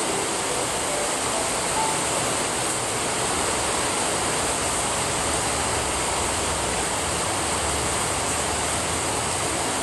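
Steady rain falling, an even hiss with a low rumble underneath that grows slightly stronger in the second half; a few faint soft music notes sound near the start.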